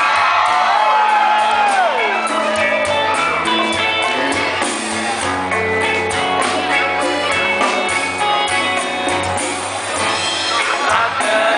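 Live band playing through a PA, recorded from the audience: guitar over drums and percussion with a steady beat, and a voice gliding in pitch in the first couple of seconds.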